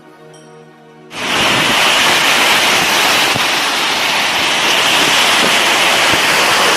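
Soft background music, then about a second in an abrupt cut to the loud, steady rushing of a waterfall in strong flow.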